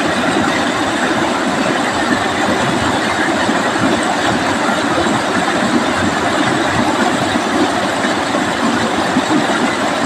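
Stream water rushing steadily over a low rocky cascade.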